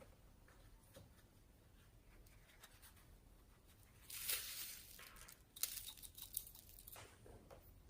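Slime being stretched and squished by hand, faint sticky crackles and small pops. There is a short hissy stretch about four seconds in, then a quick run of clicks near the end.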